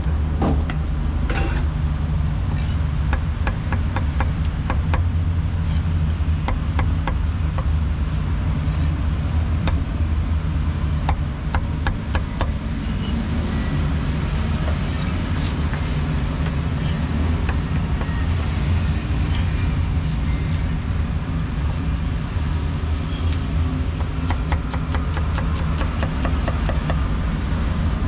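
Meat cleaver chopping braised meat on a round wooden chopping block: repeated sharp knocks, quickening into rapid chopping near the end, over a steady low rumble of street traffic.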